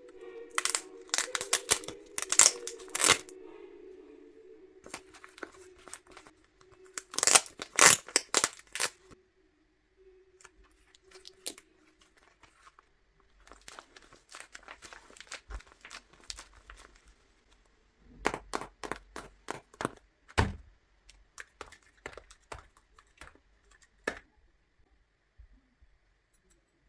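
Paper being torn and crinkled by hand in several bursts of sharp crackling, with quieter rustles between: a handmade paper blind bag being opened.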